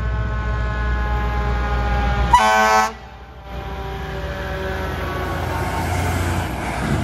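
Fire apparatus passing: a pitched drone falling slowly, cut by one short air horn blast about two and a half seconds in. After a brief dip, the aerial ladder truck's diesel engine rises in pitch as it pulls past.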